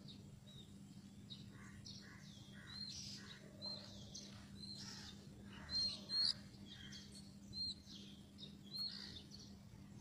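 Oriental magpie-robin calling: a string of short, high, upturned notes mixed with harsh scratchy calls, loudest twice about six seconds in. A steady low hum runs underneath.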